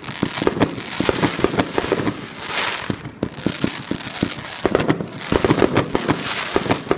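Fireworks and firecrackers going off: many sharp bangs in quick succession over crackling hiss that swells and fades every second or two.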